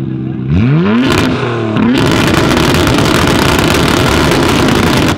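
Modified Nissan Skyline R34's engine revved hard from idle: a quick blip about half a second in and another near two seconds, then held at high revs, rough and crackling, with flame shooting from the exhaust, before dropping off sharply at the end.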